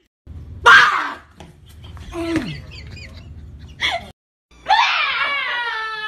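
People screaming after being startled: a couple of short loud yells and a falling cry, then about halfway through a long, high scream held steady for several seconds.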